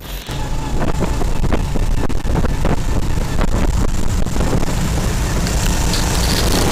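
Homemade snowmobile powered by a Sharmax 18 hp single-cylinder four-stroke engine (from a walk-behind tractor) running under load as it drives through deep snow, with wind noise on the microphone over it.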